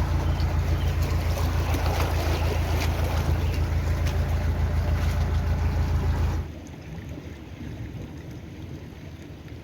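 Wide canal boat's engine running steadily under way, a low pulsing thrum. About six and a half seconds in it drops away abruptly, leaving a quieter hiss of wind.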